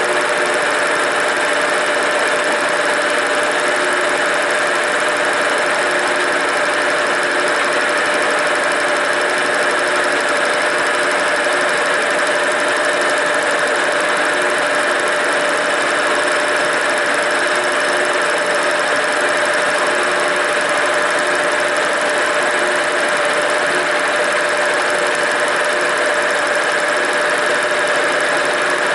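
Milling machine taking a cutting pass along two steel plates at once: a steady machining noise with a constant whine from the cutter and spindle.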